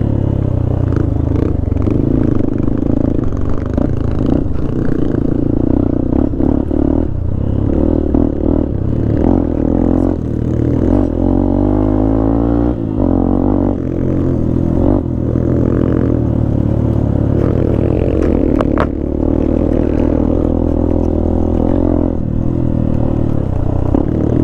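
Vehicle engine running steadily while driving over a rough, unpaved mountain track, with clattering and scraping knocks from the bumpy surface. The engine note shifts in pitch briefly around the middle.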